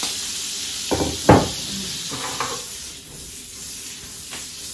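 Butter and olive oil sizzling in a nonstick frying pan, with two knocks about a second in as the pan is set down on a gas burner's grate. A few lighter knocks follow, and the sizzle dies down after about three seconds.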